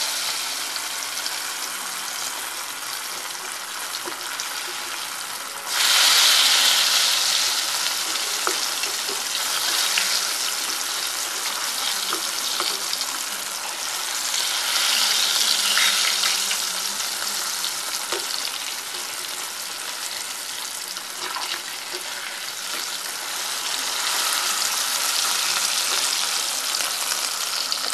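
Bombay duck (bombil) pieces coated in rice flour sizzling steadily in hot oil, being pushed and turned with a spatula as they brown and crisp near the end of frying. The sizzle jumps louder suddenly about six seconds in, then rises and falls.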